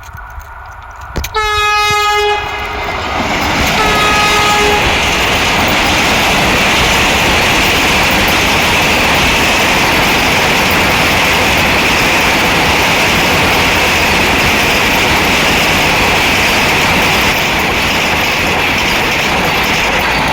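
Vande Bharat electric trainset sounding its horn, a blast and then a shorter second one, then passing close at speed with a loud, steady rush of wheels on rail.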